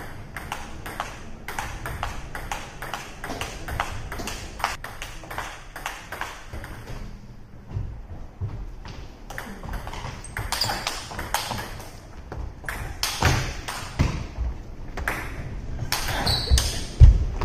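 Table tennis ball being hit back and forth in a rally: a series of sharp clicks of ball on paddle and table, quick and regular for the first several seconds, then more spaced out. A heavy thump near the end is the loudest sound.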